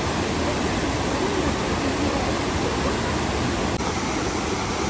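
Steady rushing roar of a waterfall, loud and even.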